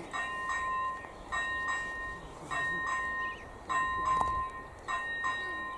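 Electronic ZV-01 warning bell of an AŽD 97 level crossing ringing while the crossing is active: a repeating double chime, two strikes about a third of a second apart, each pair coming round about every 1.2 seconds.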